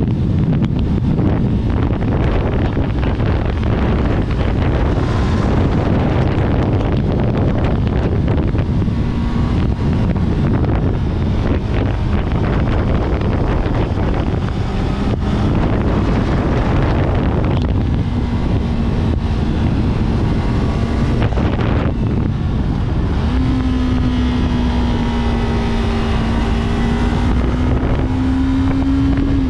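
Yamaha R3's parallel-twin engine running under heavy wind buffeting on the microphone. The wind noise dominates, and the engine note comes through as a steady tone from about a third of the way in, clearest near the end, where it rises slightly in pitch.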